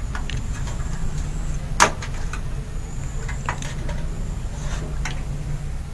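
Sharp plastic clicks and light knocks as the retention latches of a desktop motherboard's RAM slot are pushed open and the memory module is handled out of its slot; the loudest click comes a little under two seconds in. A steady low hum runs underneath.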